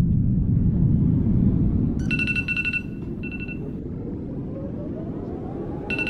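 A low rumble, then an electronic phone-style ringtone trilling in a long and a short burst, starting about two seconds in and again near the end. The rumble drops off after the first ring, and a rising tone sweeps upward in the second half.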